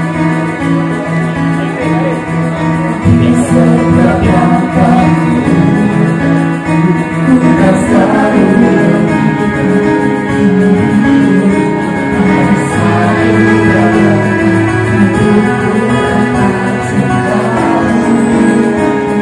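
A man singing a slow song into a microphone over the PA, with long held notes, accompanied by instrumental backing music.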